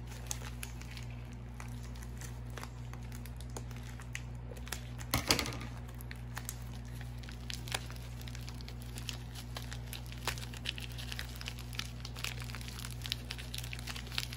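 Plastic packaging being handled and unwrapped, crinkling and crackling in irregular small bursts, with a louder crackle about five seconds in, over a steady low hum.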